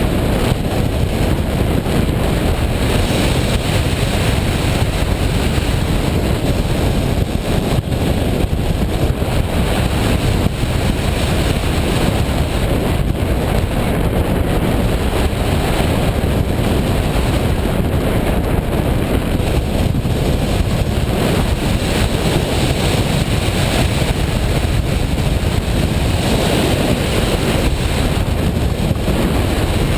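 Washing machine running with a loud, steady rushing noise that holds level throughout.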